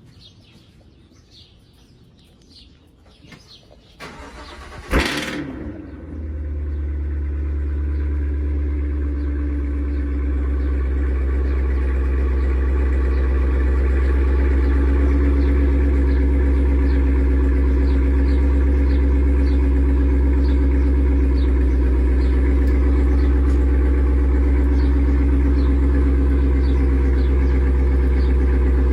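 Supercharged 6.2-litre V8 of a 2023 Cadillac Escalade-V cold-starting about five seconds in with a brief loud flare, then settling into a steady, deep idle. Birds chirp faintly before the start and through the idle.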